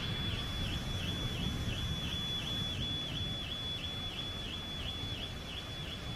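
Rainy night storm ambience: a steady low rumble, with a thin high-pitched tone that dips briefly about three times a second.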